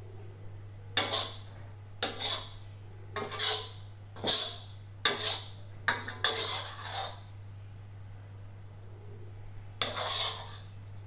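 Metal spatula scraping across a wok, scooping up fried rice vermicelli: a run of short scrapes about a second apart, then one more near the end.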